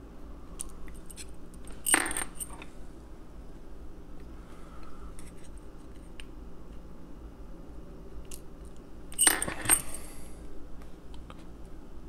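Small metal lock pins being pushed out of a Tianda lock's core and clinking with a short ring as they drop onto a hard surface, with light ticks of the steel tool against the lock between. Two clinks stand out: one about two seconds in and a quick double near the end.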